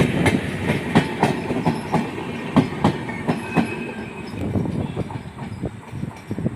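Express passenger train rolling past, its wheels clacking over rail joints in quick, uneven clicks over a steady rumble, easing off slightly toward the end.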